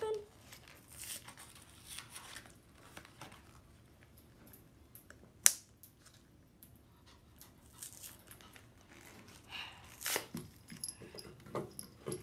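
Cardboard-and-plastic toy blister packaging being picked at and torn open by hand: faint, scattered rustling, crinkling and tearing, with one sharp click about five and a half seconds in.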